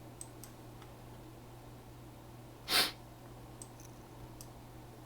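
A single short sniff a little past halfway, over a steady low hum, with a few faint clicks near the start and near the end.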